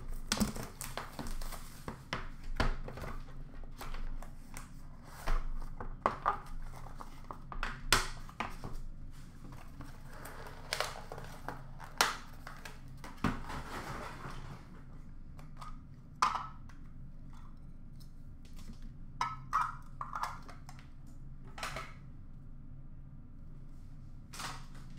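Hands handling and opening a cardboard box of trading cards: scattered knocks, taps and thunks of cardboard being moved and set down, with rustling and crinkling of packaging, thicker in the first half.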